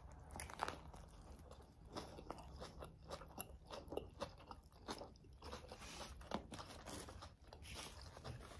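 A person biting into and chewing a sub sandwich layered with potato chips, close to the microphone: a run of small, irregular crunches.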